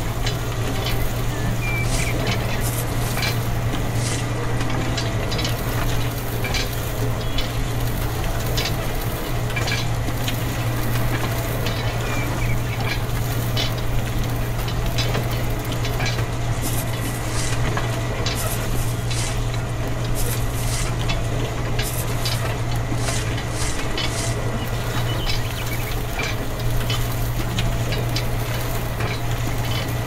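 Miniature motor-driven grain sieve running: a steady low hum from the small motor and shaking screen, with a dense scatter of small ticks and hiss as wheat grains rattle over the mesh and slide down the metal chute.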